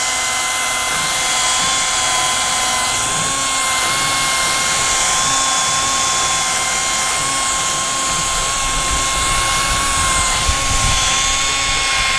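21-volt cordless drill driving the propeller shaft of a drill-powered outboard boat motor, running flat out with a steady high-pitched whine whose pitch wavers slightly. A steady hiss runs beneath it.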